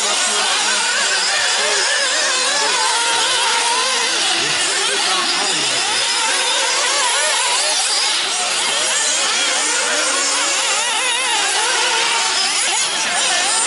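Several nitro RC buggies' small two-stroke glow-fuel engines running at high revs. Their overlapping pitches keep rising and falling as the cars accelerate and lift off around the track.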